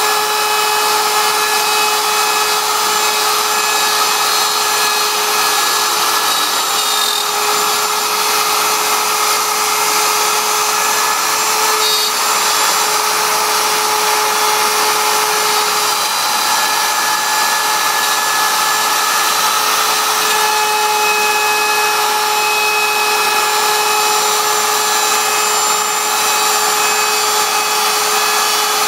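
CNC router spindle running steadily with the bit cutting into wood: a constant whine over continuous cutting noise.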